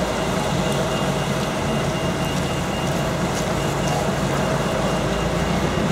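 Wet-street traffic: a New Routemaster double-decker bus running steadily as it moves along, with tyres hissing on the rain-soaked road. A faint, repeated high beeping sounds through the first half.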